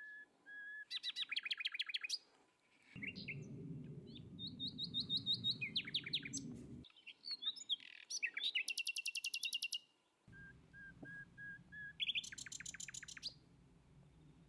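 Birds chirping and trilling, a run of varied calls: fast trills, short repeated whistled notes and sweeping notes. A faint low background rumble comes in twice, around the middle and over the last few seconds.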